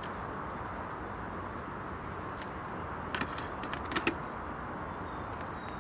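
Steady outdoor background hum with faint, high, short bird chirps now and then and a few light clicks in the middle.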